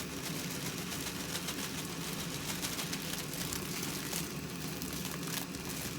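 Small camp stove burning steadily with a low hum and hiss, with faint crackling from food cooking on it.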